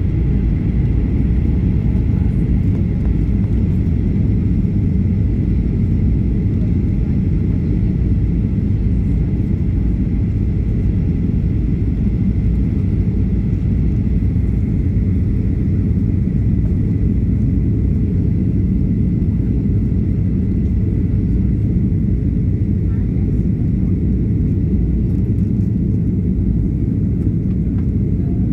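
Steady cabin roar of a Boeing 737-800 on approach, heard from a window seat: the CFM56 engines and airflow making an even low rumble, with a faint steady high tone above it.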